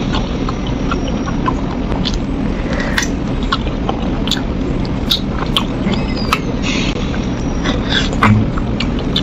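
Close-up eating sounds of spicy braised chicken feet being chewed and their skin sucked off the bones: irregular wet lip smacks and small sharp clicks. A steady low hum runs underneath.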